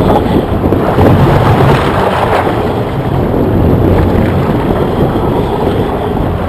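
Strong wind buffeting the microphone, a loud, steady rushing noise, with a low steady hum underneath.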